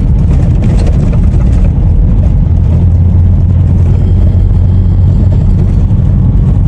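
A vehicle driving: a steady, loud low rumble of engine and road noise.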